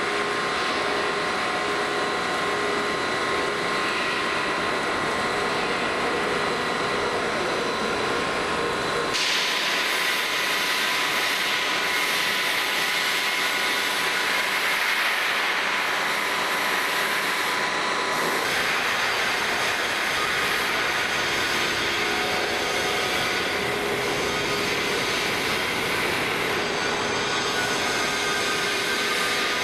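Steady noise of heavy metal-fabrication machinery running, with faint steady whines in it, as a large plate rolling machine bends thick steel plate. The noise changes abruptly about nine seconds in and again about eighteen seconds in.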